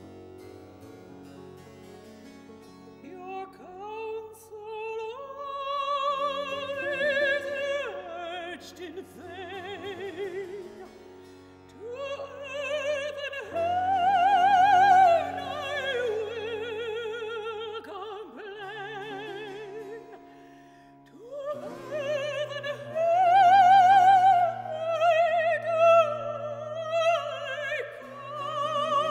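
A woman singing Baroque opera recitative with wide vibrato, over harpsichord continuo with sustained bass notes. The voice pauses briefly about two thirds of the way through, then resumes.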